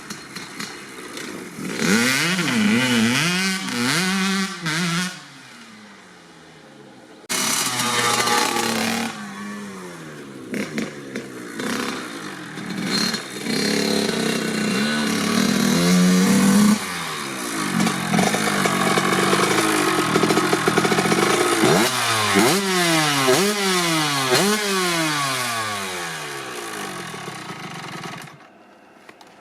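Kawasaki KX80's single-cylinder two-stroke engine revved hard over and over, its pitch climbing and falling back, with a short lull about six seconds in. Near the end it climbs in several quick runs, one after another, before it drops away.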